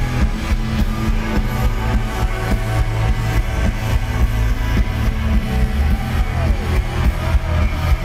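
Rock band playing live through a PA, loud: electric guitars over a steady bass and drum beat, recorded from within the audience.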